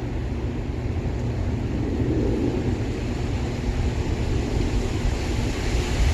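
Strong wind gusting through flowering trees, with a heavy low rumble of wind buffeting the microphone; it slowly builds in strength.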